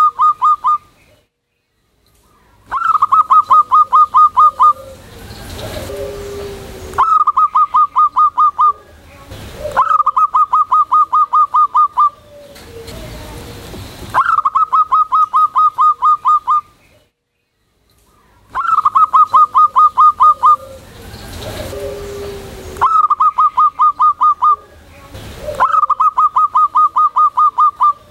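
Zebra dove (perkutut) singing: about seven loud phrases, each a rapid, evenly spaced run of short staccato coo notes lasting about two seconds, separated by short pauses. Some pauses hold softer, lower notes.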